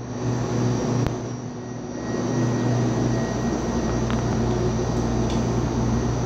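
A steady mechanical drone with a strong low hum and a thin high whine. A faint click comes about four seconds in.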